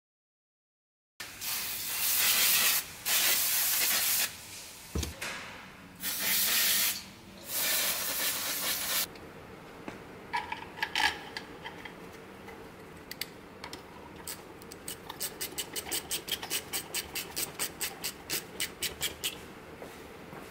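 Aerosol brake cleaner (CRC Brakleen) sprayed in several loud hissing bursts onto an oil pump to flush out silicone debris. It is followed by handling noise and a quick run of light clicks, about five a second, near the end.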